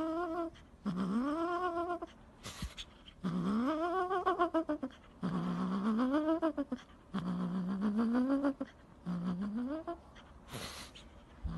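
A cat meowing with its mouth on a dark object: a run of about six long, drawn-out calls, each rising and then falling in pitch. Two brief rustling noises come between the calls.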